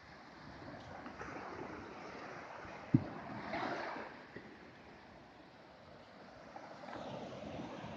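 Shallow sea waves washing up the sand and draining back, swelling twice. A brief low thump about three seconds in is the loudest moment.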